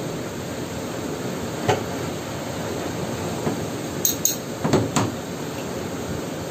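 Metal clinking and tapping as a welding electrode holder and small steel pieces are handled between welds: one sharp clink about two seconds in and a quick run of clinks around four to five seconds, over a steady background rush.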